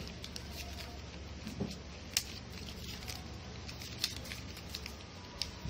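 Sheet of paper crinkling and rustling as it is folded and creased by hand, with scattered small crackles and a few sharper ticks, over a steady low hum.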